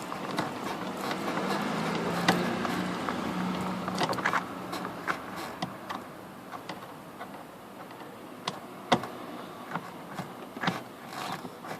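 A small electric motor buzzes steadily for about five seconds and then stops, followed by scattered sharp clicks and knocks of parts being handled on the car door.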